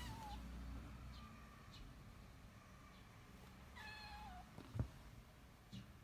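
Ginger tabby kitten meowing in a pleading way, as if asking for something out of reach to be taken down for it. One falling meow trails off at the very start, a faint short one follows about a second in, and a clearer falling meow comes about four seconds in. Two soft thumps follow near the end.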